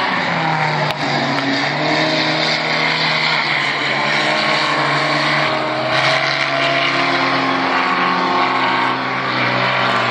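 Stock car engine running at race speed, its note wavering up and down in pitch as it goes through the turns.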